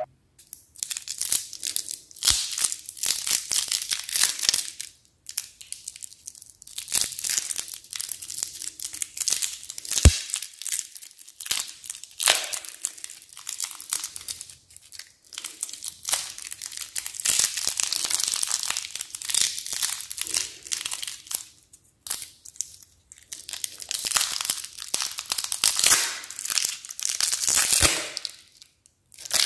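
Clear plastic lollipop wrapper crinkling as it is twisted and pulled off a round hard-candy lollipop by hand, in bursts with short pauses. There is one sharp tap about a third of the way through.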